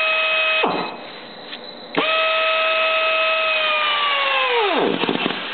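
Air motor of a RAD 10GX pneumatic torque wrench running with a steady whine, cutting off abruptly under a second in. After a short pause with a click it starts again about two seconds in, runs steadily, and near the end its pitch drops away as the motor slows to a stall, the sign of the wrench reaching its set torque.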